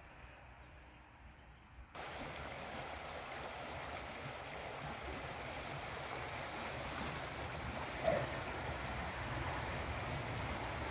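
The North Esk River running fast and choppy: a steady rush of flowing water that comes in suddenly about two seconds in and grows slightly louder.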